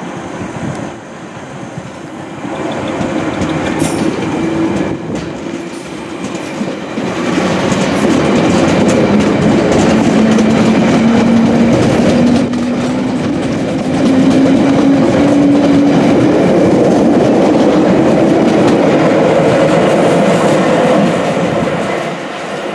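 London Underground 1962 Tube Stock train running through the station without stopping. Its wheels clatter over the rail joints, growing louder as it draws level and passes, with a motor hum that rises in pitch, then easing off near the end.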